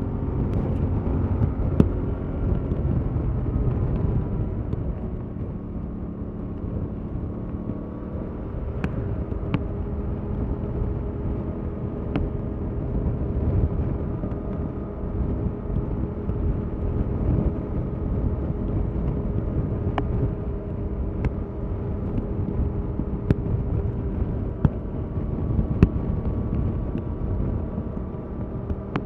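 Stock Yamaha MT-07 parallel-twin engine running under way, its pitch drifting gently up and down as the revs change, over a heavy low rumble. Several short sharp clicks occur throughout.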